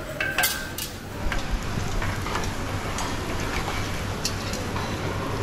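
Dough pieces deep-frying in a large pot of hot oil: a steady, rain-like sizzle. A few sharp clinks of the metal skimmer near the start.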